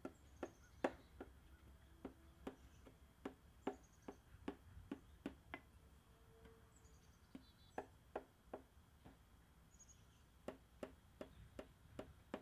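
Knife cutting through syrup-soaked basbousa in a metal baking pan, giving a run of sharp clicks about two to three a second as the blade presses down through the cake to the pan. The clicks pause for a couple of seconds midway.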